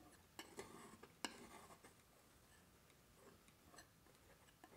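Faint scraping and light clicks of a steel palette knife mixing oil paint on a palette, mostly in the first two seconds, with one sharper click near the middle of that stretch and a couple of faint ticks later.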